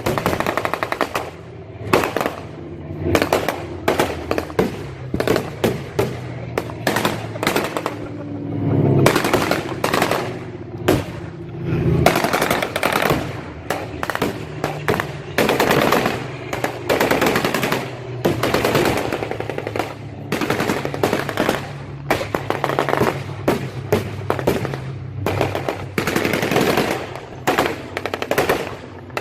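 Bursts of rapid machine-gun fire, some short and some running for several seconds, with brief gaps between them: staged anti-aircraft gunfire for a re-enactment of the 1942 Los Angeles air raid.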